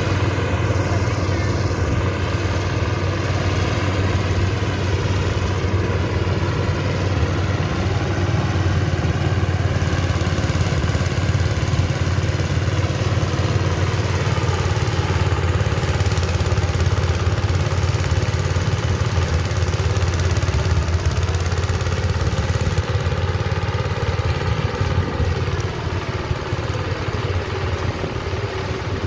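Engine of a rice-harvesting machine running steadily under load, with a strong low hum, easing off a little near the end.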